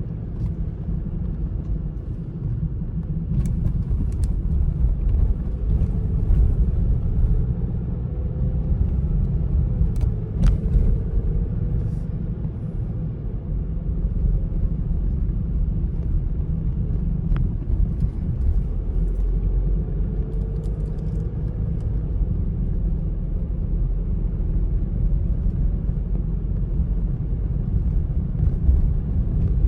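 A car driving: a steady low road rumble, with the engine note rising and falling gently as it changes speed. A few light clicks are heard along the way.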